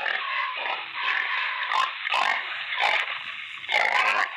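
Pig oinking and grunting: a string of short, rough calls at about two a second.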